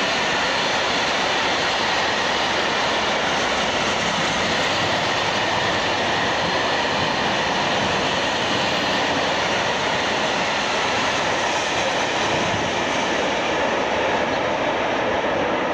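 Freight train of bogie hopper wagons passing close by, a steady rushing rumble of wheels on the rails that holds at one level throughout.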